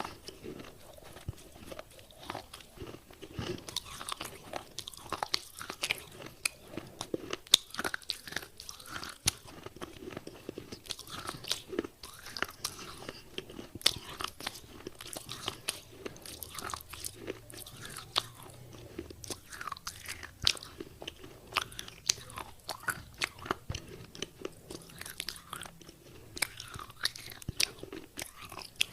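Mouth crunching and chewing pieces of wet clay pot: a dense, irregular run of sharp crackles and crunches.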